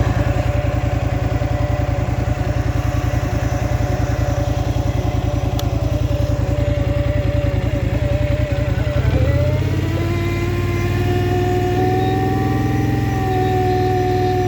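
Polaris Scrambler XP 1000 S ATV engine running, with a steady whine over the even exhaust pulse: this is the weird noise the owner is recording. About nine seconds in, the whine dips in pitch, then rises and holds higher as the engine note smooths out.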